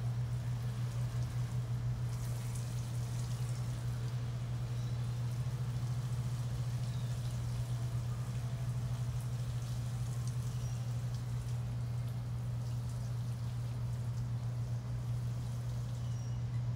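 Water sprinkling from the rose of a metal watering can onto leafy garden plants, over a steady low machine hum that is the loudest sound throughout.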